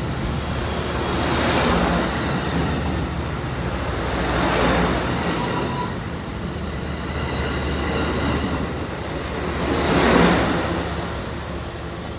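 Bilevel passenger train cars rolling past as the train pulls out, a steady wheel-on-rail rumble that swells three times as cars go by, then fades as the rear cab car moves away near the end.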